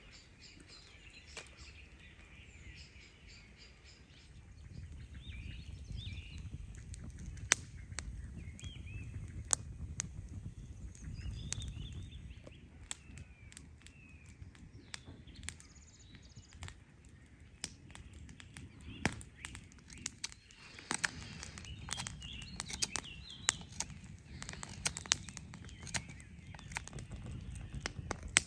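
Woodland birds singing over a low rumble while a wood campfire crackles, its sharp pops coming more often in the second half.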